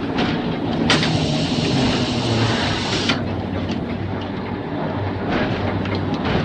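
Mumbles Railway electric tramcar running along the track, with a steady low hum and scattered clicks of the wheels over the rails. A loud hiss starts about a second in and stops about two seconds later.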